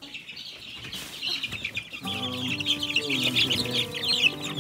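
Many baby chicks peeping nonstop, a dense chatter of short high cheeps. About halfway in, steady held background music joins beneath them.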